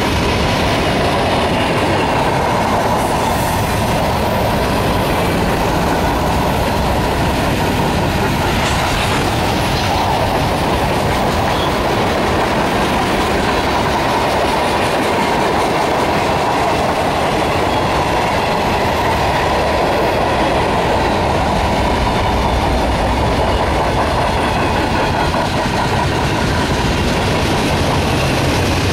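Freight cars of a CSX freight train (covered hoppers, a tank car and boxcars) rolling past: a steady, loud rumble and clatter of steel wheels on rail.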